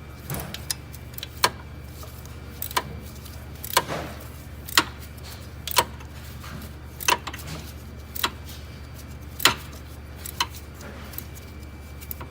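Wrench clicking about once a second as it tightens the drive-belt tensioner bolt with a 14 mm wrench, a sharp metal tick on each stroke, over a steady low hum.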